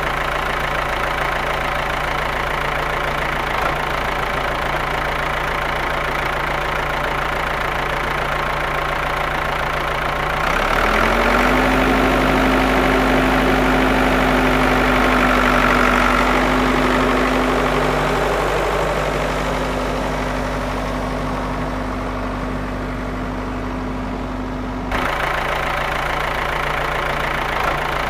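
Tractor engine running steadily at idle. About ten seconds in a higher steady hum joins and the sound grows a little louder, then near the end it cuts back abruptly to the first steady sound.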